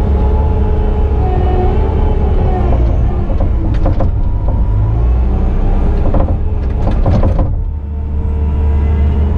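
Bobcat T650 compact track loader's diesel engine running under load, heard from inside the cab, with the machine rattling and clanking as it travels with a loaded bucket. A few knocks come about four seconds in and a burst of clanks follows a little later, then the engine note briefly drops.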